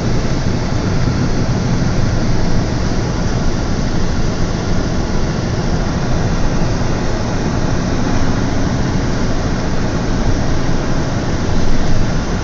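Steady driving noise inside a moving vehicle's cab: a low engine hum under even road and wind noise.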